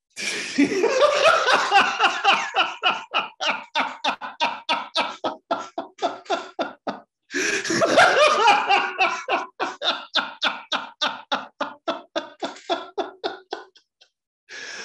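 A man laughing loudly and heartily in two long bouts, each a rapid string of ha-ha pulses, with a brief catch of breath about seven seconds in. The laughter stops shortly before the end.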